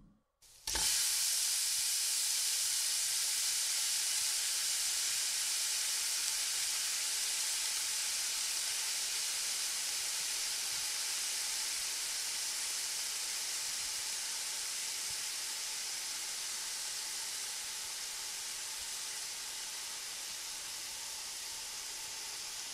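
Chocolate sauce sizzling on a hot sizzler plate: a steady hiss that starts about half a second in and slowly fades.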